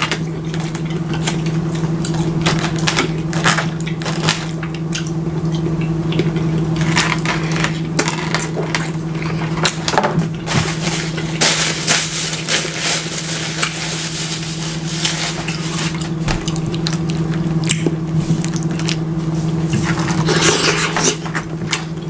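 Close-miked eating sounds: chewing a mouthful of rice and cabbage, with many small wet clicks and crackles and a plastic fork scraping a foam takeout container. A paper napkin rustles for a few seconds about twelve seconds in, over a steady low hum.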